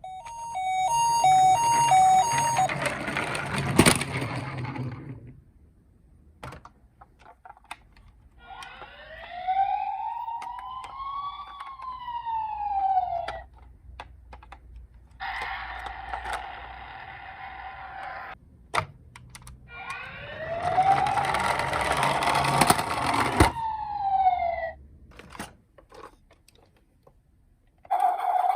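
Toy emergency-vehicle minicars' sirens: a two-tone hi-lo ambulance siren with clattering noise in the first few seconds, then rising-and-falling wail sirens twice, each over about five seconds, with a steadier buzzing siren tone between them.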